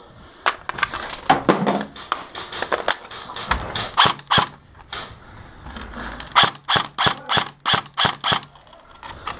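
Airsoft rifle firing single shots, each a sharp snap. The shots are scattered at first, then come as a quick regular string of about four a second for two seconds in the second half.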